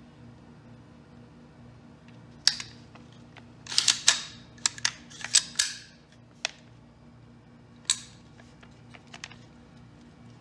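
Metallic clicks and clacks of a Sig Sauer M400 AR-15's action being worked by hand while clearing it: the charging handle and bolt carrier moving. There is a sharp click a couple of seconds in, a quick run of clacks and sliding metal in the middle, and another sharp click later.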